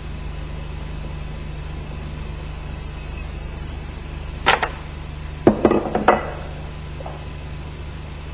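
A few sharp metallic clinks of a steel tool against the screws and tab washers of an MZ 250 motorcycle clutch as the screws are taken out, one about halfway through and a quick cluster about a second later. A steady low hum runs underneath.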